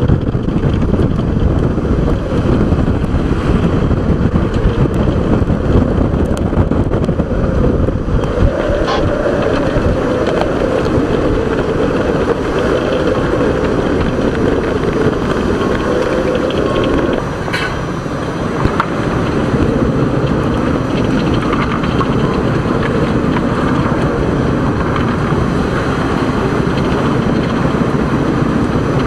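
Strong wind buffeting the microphone on the deck of a sailboat in heavy seas, with waves rushing and breaking along the hull. It is a loud, steady rushing noise with no clear engine note.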